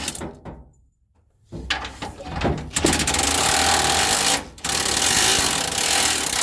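Power impact wrench hammering on the 17 mm bolts of the bumper brackets, in three long rattling bursts with short pauses between them.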